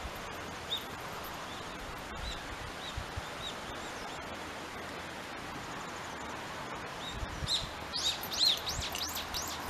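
Small birds chirping over steady outdoor background noise: scattered short high chirps, then a quick run of louder, rapidly repeated chirps near the end.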